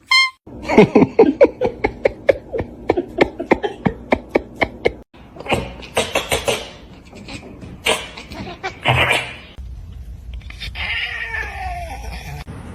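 A cat crying out in a fast run of short pitched calls, about four a second, then a few separate louder cries.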